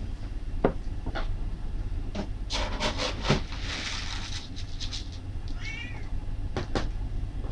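House cats meowing for food, with scattered clicks and knocks and a rustling hiss around the middle; a short high meow comes about six seconds in.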